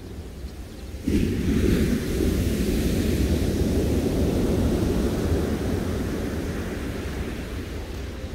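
Ocean surf: a wave breaks about a second in, a sudden rush of churning water that slowly fades as it washes up the beach, over a steady low rumble.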